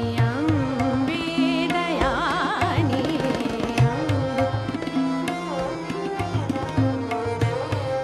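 Instrumental background music in a South Asian classical style: a melody of bending, wavering notes over a steady low hand-drum rhythm.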